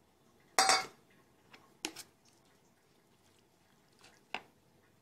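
Metal spoon clinking against a mixing bowl: one loud ringing clink about half a second in, then lighter clicks around two seconds and past four seconds.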